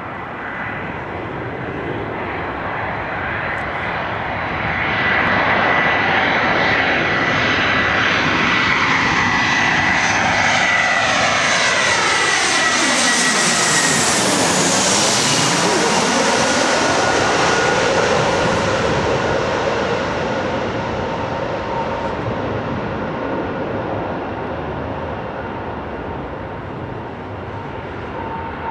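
Airbus A320's twin jet engines on final approach, growing louder as the airliner passes low overhead, then fading as it moves away toward the runway. A high engine whine drops in pitch as it goes by.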